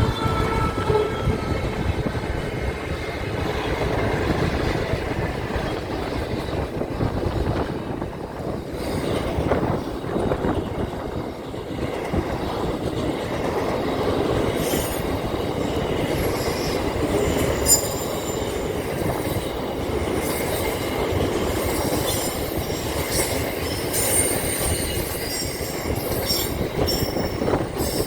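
A train running on the rails with a steady rumble, and high-pitched wheel squeal coming in from about halfway through.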